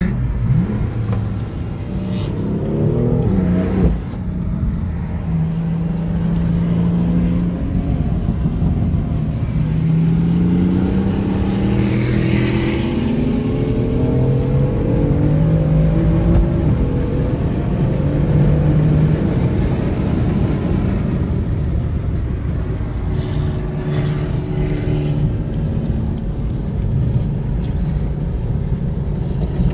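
Performance car engine revving and accelerating in several rising pulls, loud and steady between them, with a sharp drop in the note about four seconds in.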